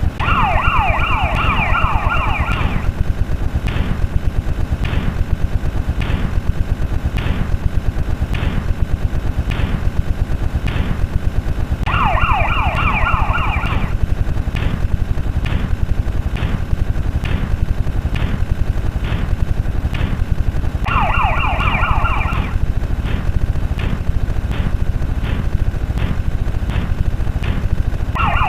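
Layered electronic sound effects: bursts of fast falling alarm-like chirps, each about a second and a half long, come back roughly every nine seconds over a dense, rapid low rattle and regular sharp ticks a little under two a second.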